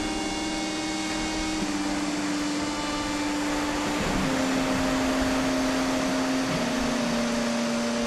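Small waves washing onto a pebbly beach, a steady rush of surf. Over it, soft held background-music notes shift pitch every few seconds.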